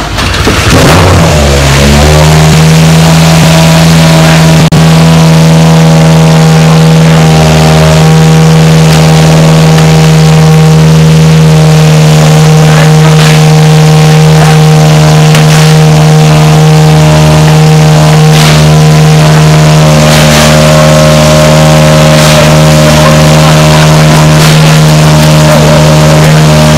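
Toyota Yaris WRC's 1.6-litre turbocharged four-cylinder rally engine running close by. Its pitch shifts in the first two seconds, then settles into a steady, even note.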